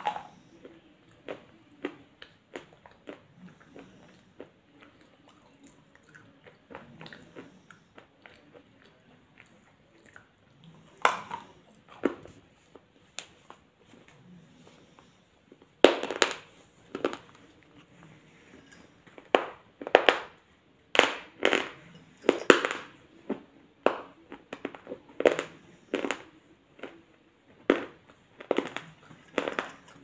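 Close-up crunching and chewing of hard, brittle pieces of baked edible clay. Sharp crunches are sparse and softer at first, then come loud and fast, about one to two a second, from about halfway through.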